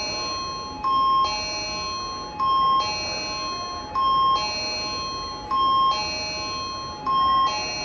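Station guide chime: a two-tone electronic ding-dong that repeats steadily about every one and a half seconds.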